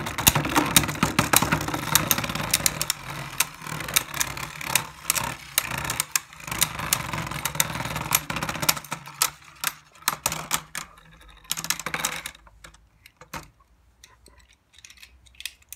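Two Beyblade Burst spinning tops whirring and clattering in a plastic Beystadium arena, with rapid repeated clicks as they clash and scrape the dish. The whirring stops about twelve seconds in, leaving only a few scattered clicks.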